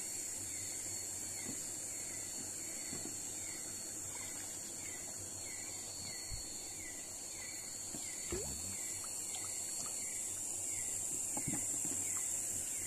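Night insect chorus as a steady high hiss, with a short falling chirp repeating about twice a second, over soft trickling and sloshing of shallow river water with a few small splashes.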